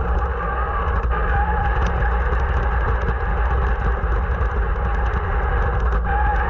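Brushless electric motor and drivetrain of a Traxxas X-MAXX 8S RC truck running under power, a steady drone with a whine that wavers slightly in pitch.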